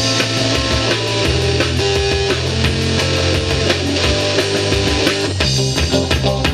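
Rock band playing loud, with electric guitars over a steady drum beat.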